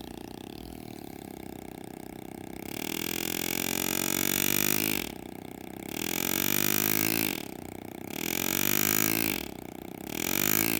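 Pneumatic air graver handpiece buzzing in four bursts of one to two seconds, its pitch sweeping as it speeds up and slows, while cutting shade lines into soft metal. A steady hum underneath.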